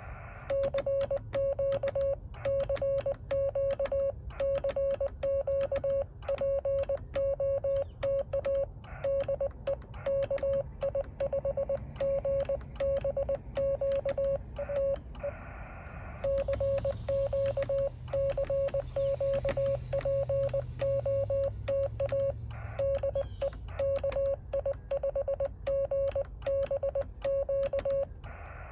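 Morse code from a Yaesu FT-817 ham radio transceiver: a steady tone of about 600 Hz keyed in dots and dashes, with a sharp click at each keyed element. The sending pauses briefly about halfway through.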